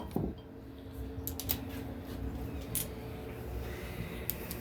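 Scattered light metal clicks and taps as a camshaft is worked into a Ford 351 Windsor engine block by hand, over a steady low hum.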